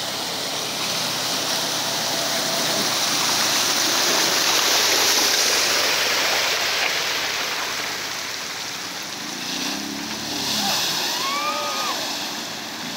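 Rushing creek water churned by a side-by-side utility vehicle wading through it, the splashing loudest a few seconds in. Near the end an ATV's engine revs briefly as it drives into the water.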